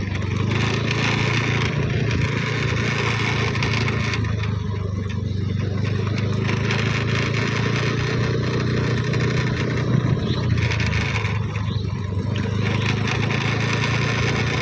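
A vehicle engine running steadily while it drives over a broken, rough road surface, with a continuous crunching and rattling of tyres on gravel and potholes.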